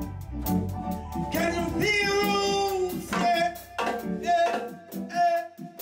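Music with a singing voice over drums and bass.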